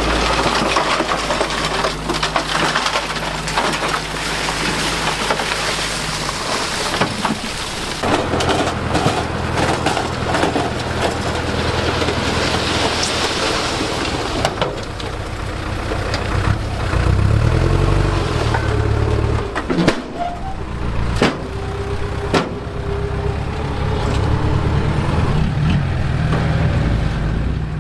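Diesel engine of a Mitsubishi bulldozer running under load, with crunching of soil and stones and several sharp clanks. The engine note rises briefly past the middle.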